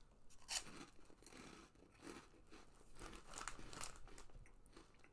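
Faint crunching of a Monster Munch pickled onion corn snack being chewed with the mouth closed, with a little crinkling of the snack bag. The snack is still crunchy, not stale, although its bag had come open.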